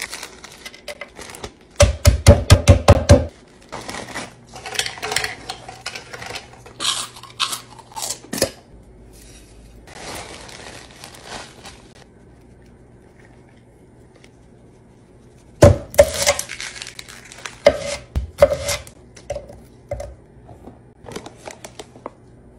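Kitchen food-prep sounds: a chip bag crinkling, a quick run of about eight loud knocks near the start, then scattered clinks and taps of utensils against bowls, with a quieter stretch past the middle.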